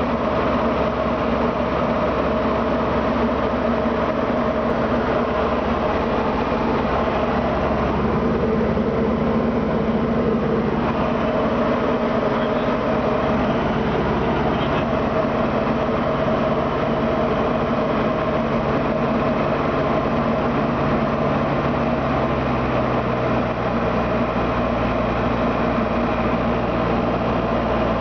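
Diamond DA40's single propeller engine and airflow heard inside the cabin on the landing approach: a steady, loud drone with an even engine hum under a hiss of wind.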